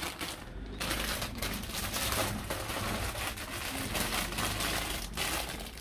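Thin clear plastic bag crinkling and rustling as it is handled, a dense crackle of many quick crinkles that picks up about a second in.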